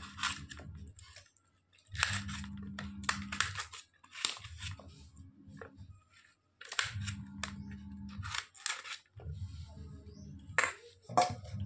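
Kitchen knife cutting carrot against a stainless-steel plate: clusters of sharp clicks and taps as the blade strikes the plate. A low hum comes and goes in spells of about a second, several times.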